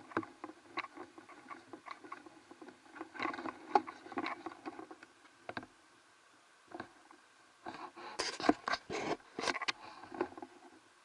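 Footsteps crunching and scuffing on gravel and dry grass, with rustling, in two bouts of irregular scrapes and clicks: one starting about three seconds in, another about eight seconds in.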